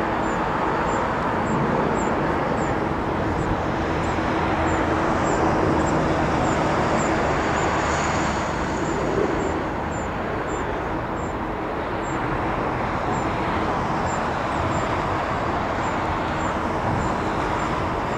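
Robinson helicopter flying overhead, a steady rotor and engine drone.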